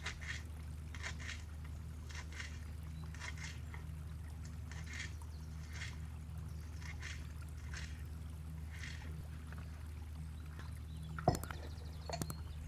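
Soft swishing strokes, about one a second, over a steady low hum. The strokes stop, and then there is a sharp knock and a couple of light clicks near the end.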